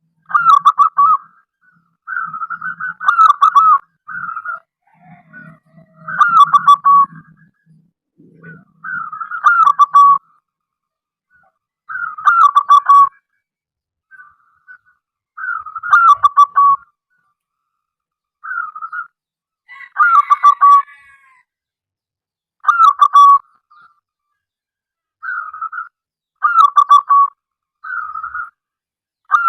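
Zebra dove (perkutut) cooing song: short phrases of rapid cooing notes that drop in pitch at the end, repeated about every two to three seconds.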